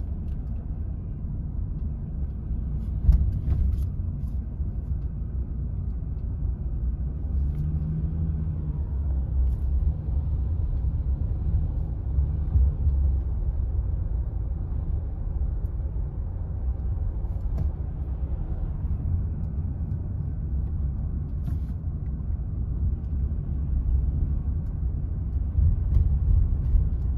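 Steady low rumble of a car driving, heard from inside the cabin: road and engine noise. There is a single sharp knock about three seconds in.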